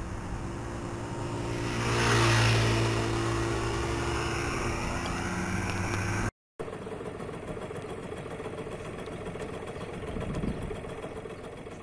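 Street traffic heard through the SQ29 mini camera's built-in microphone: a vehicle's engine passes close by, getting louder about two seconds in and fading over the next few seconds. After a brief dropout about six seconds in, a steady low hum follows.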